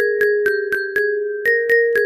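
Ringtone melody of struck mallet-percussion notes, about four a second, moving between a few close pitches.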